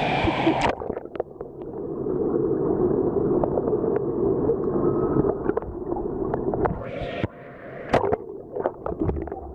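Pool water heard from underwater: a muffled, churning rumble with scattered sharp clicks and bubble pops. A moment after the start the brighter above-water sound cuts off as the camera goes under.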